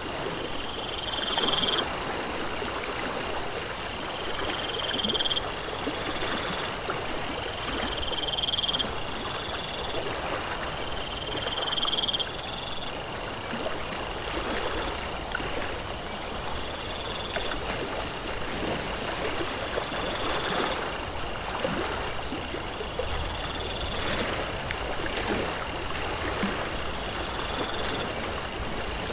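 Nature ambience: water running steadily, with high chirping calls repeating over it. A short trill comes every three to four seconds, and a quicker chirp about twice a second.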